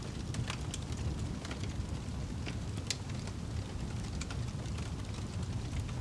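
Wood fire crackling in a fireplace: scattered sharp pops and snaps, irregularly spaced, over a steady low rumble of the flames, with one sharper pop about three seconds in.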